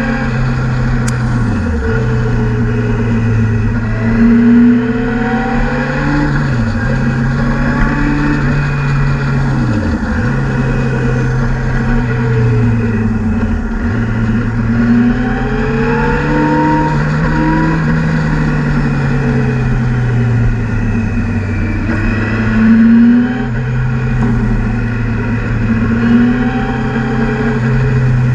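Motorcycle engine heard from on board, its note rising and falling slowly through a series of bends. Four sharp, momentary dips in revs come in the first fourteen seconds, over a steady rush of wind noise.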